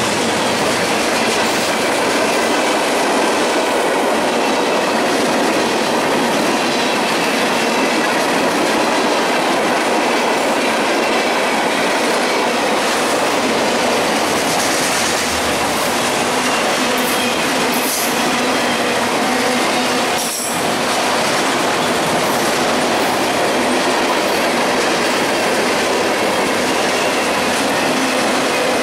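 Freight train cars rolling past close by at speed: a steady rush of steel wheels on rail with clickety-clack over the rail joints and thin, faint wheel squeal. A couple of brief sharp knocks a little after the middle.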